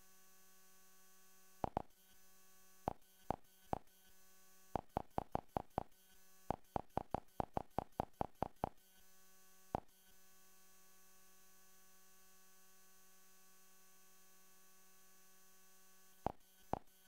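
Android TV interface navigation clicks from a Khadas VIM4 box, one short tick each time the selection moves. They come singly and in quick runs of up to about six a second, with a pause in the middle and two more near the end, over a steady electrical hum.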